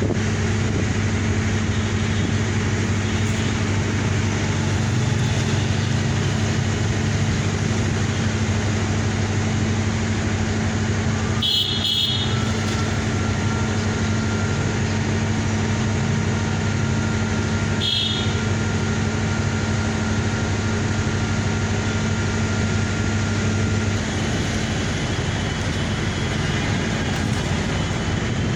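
Steady low mechanical motor hum over a constant rush of outdoor noise; the deepest part of the hum drops away near the end. Two short high-pitched notes sound about twelve and eighteen seconds in.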